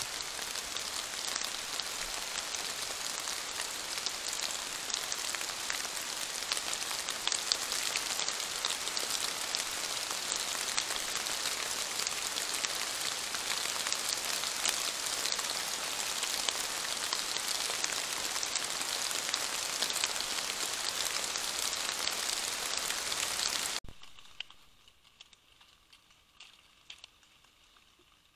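Steady rain falling, a dense, even hiss with fine pattering drops. It cuts off abruptly about 24 seconds in, leaving only a faint, quiet background.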